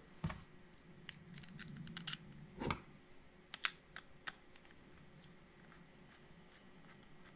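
Faint scattered clicks and light metal ticks from a Phillips screwdriver and small screws being fitted into a motorcycle gas cap lock. The clicks come mostly in the first four seconds, then thin out to faint handling noise.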